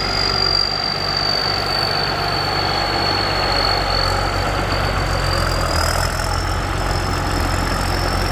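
Combine harvester's diesel engine running steadily, with a high whistle over the engine note from the exhaust that sags a little in pitch and climbs again about six seconds in.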